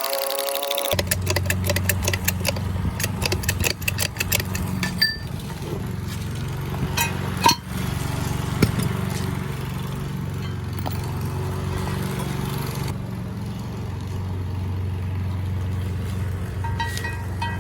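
A machine starts about a second in and runs with a steady low hum, with a few sharp metallic clicks and clinks over it.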